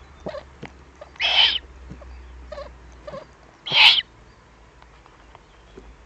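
Eurasian eagle-owl chick giving hoarse, hissing food-begging calls, twice: one about a second in and one a little before four seconds. A few faint clicks sound in between.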